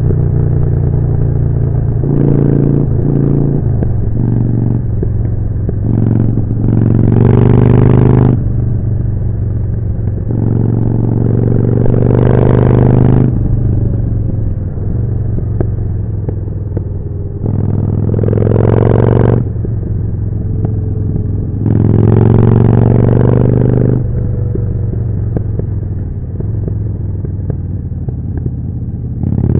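Harley-Davidson Forty-Eight's air-cooled 1200 V-twin running through a Jekill & Hide exhaust while riding. The bike pulls hard with the revs rising about four times, easing off between pulls.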